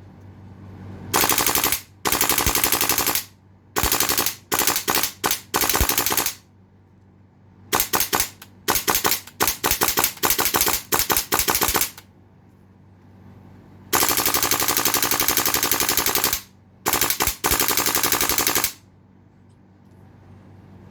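HPA-converted Golden Eagle M4 gas-blowback airsoft rifle firing in full-auto bursts of rapid, evenly spaced shots. It starts with a few short bursts of a second or less, then fires longer ones of two to three seconds, with the last long bursts coming near the end.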